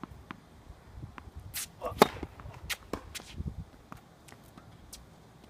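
Tennis balls being hit back and forth on a hard court: a series of sharp racket-on-ball pops and ball bounces, the loudest pop about two seconds in.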